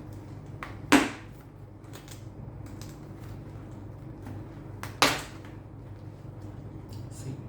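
A helmet's removable padding being pulled free of its shell: two sharp snaps as its fastenings pop loose, about a second in and about five seconds in, with lighter clicks and rustling between, over a steady low hum.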